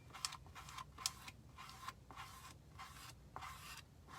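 Plastic squeegee dragging chalk paste across a silkscreen stencil in short, faint scraping strokes, about two a second.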